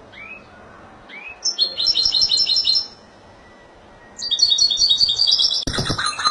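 Caged European goldfinch singing Málaga-style song. A couple of short rising call notes lead into two bursts of rapid, high twittering trills, the second starting about four seconds in. A lower, rougher sound joins in near the end.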